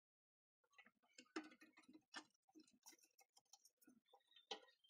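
Faint, irregular small clicks and rustles of rubber edge trim being pressed and worked onto the cut metal edge of an oil drum.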